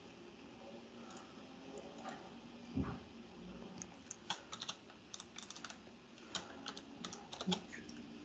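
Faint typing on a computer keyboard: a run of quick, irregular key clicks through the second half, after a single knock about three seconds in.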